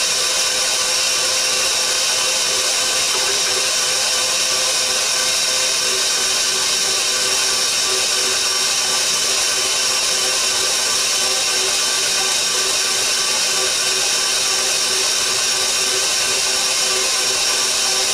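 Electric stand mixer running steadily, its motor turning the dough hook as it kneads bread dough in a steel bowl. The dough is just starting to pull away from the sides of the bowl as the gluten develops.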